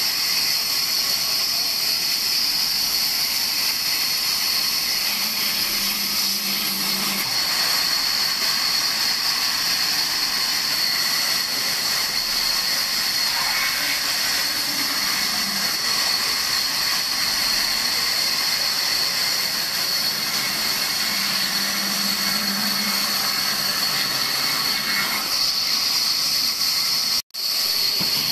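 Large band saw running and cutting through a dry log: a steady, loud, high hiss of the blade in the wood over the motor's hum. The sound drops out for an instant near the end.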